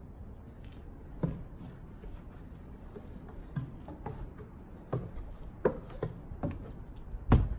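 Footsteps going down a rickety old staircase: a string of irregular thuds, one step every half second to a second, the heaviest near the end.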